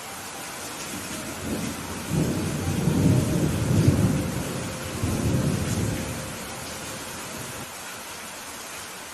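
Steady rain hissing down, with a rumble of thunder that builds about a second and a half in, is loudest around three to four seconds in, and rolls away by about six seconds.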